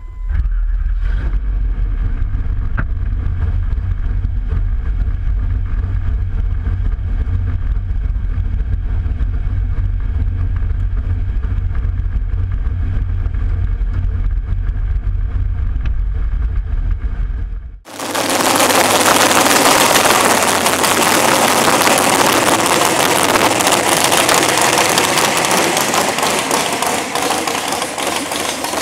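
Chevy 1500 mud truck's engine running, a steady deep rumble heard from inside the cab. About eighteen seconds in it cuts suddenly to a louder, harsher, hissy engine noise from outside the truck.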